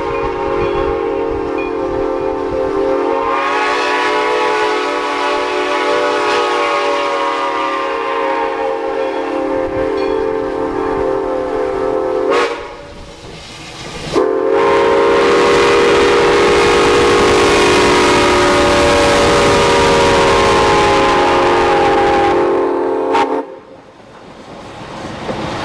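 Santa Fe 3415 steam locomotive's chime whistle blowing two long blasts: the first about twelve seconds, then after a short break a louder one of about nine seconds that sags slightly in pitch before cutting off near the end. Wind buffets the microphone underneath.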